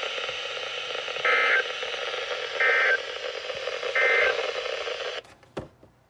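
NOAA weather radio's speaker hissing with broadcast static, carrying three short bursts of digital data tones about 1.3 seconds apart: the Emergency Alert System end-of-message code that closes the Required Weekly Test. The receiver's audio cuts off about five seconds in, followed by a single click.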